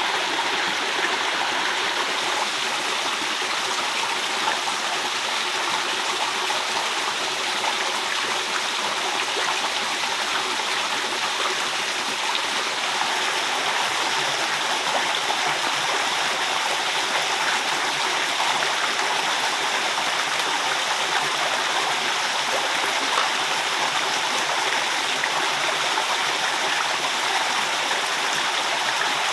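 A forest stream flowing: a steady, unbroken sound of running water.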